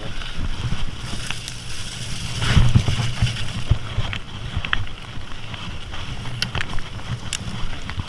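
Mountain bike rolling over a rough dirt trail: a steady low rumble of tyres and bike with scattered rattles and clicks, loudest over a bump about two and a half seconds in.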